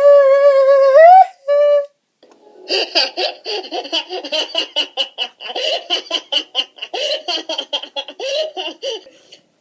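A woman's voice holds a sung note that rises and breaks off about a second in. After a short pause comes a long run of rapid, choppy laughter that stops shortly before the end.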